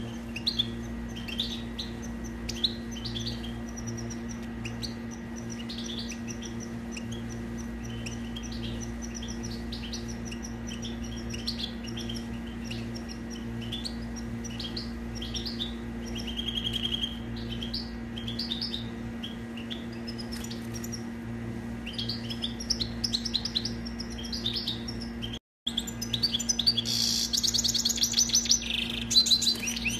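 European goldfinch singing: a continuous run of quick high twittering notes and trills, over a steady low electrical hum. After a momentary break about 25 seconds in, the song comes back louder and denser.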